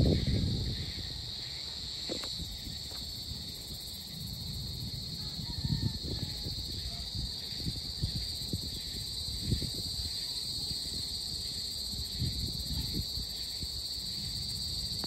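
Evening insect chorus: a steady, unbroken high drone, with irregular low rumbles underneath.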